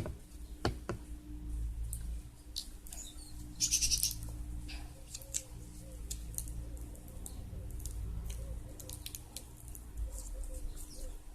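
Small sharp clicks and taps of a plastic container of beads being handled as its lid is tried without opening, with a short rattle about four seconds in.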